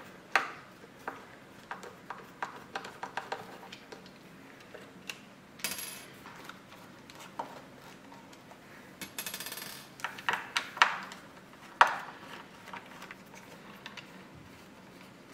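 Hex key working the small screws out of the amplifier plate on a Definitive Technology CS9080 center channel speaker. Irregular light metal clicks and clinks of the key and loose screws, with a short rattle of quick ticks about nine seconds in.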